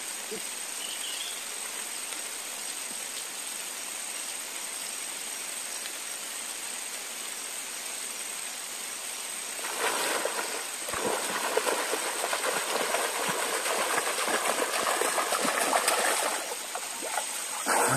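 Steady hiss of flowing river water with a thin high whine; about ten seconds in, some six seconds of splashing and dripping as the fish net and its catch are worked in the river.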